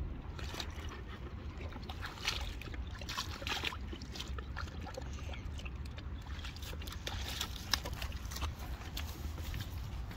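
Shallow water sloshing and splashing at a rocky shore as a large dog wades and noses at the water's edge, with irregular small splashes and clicks. A steady low wind rumble on the microphone runs underneath.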